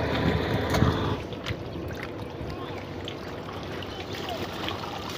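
Shallow water sloshing and splashing as a person wades and sweeps a hand net through it, with a few faint clicks.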